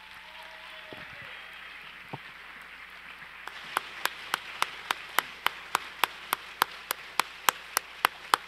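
Audience applauding in a hall. From about halfway through, sharp, evenly spaced claps about three a second stand out above the general clapping.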